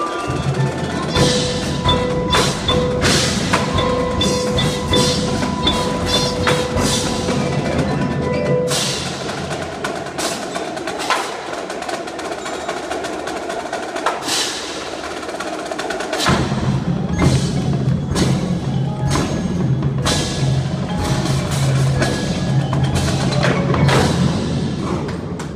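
Indoor percussion ensemble playing: marching drums struck in quick, dense patterns over mallet keyboards and metallic ringing tones. Held tones carry the first third, and a low sustained bass comes in about two-thirds of the way through.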